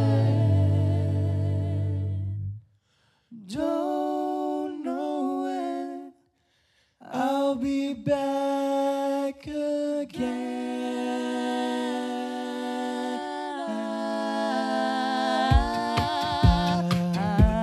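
Mixed-voice a cappella ensemble singing close-harmony chords: the chords break off into silence twice, come back in short stabs, then settle into a long held chord. Near the end, vocal percussion and a sung bass line come in as a new song starts.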